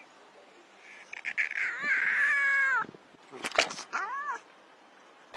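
A cat meowing: one long drawn-out meow starting about a second in and dropping in pitch at its end, then a few sharp clicks and a shorter meow that rises and falls.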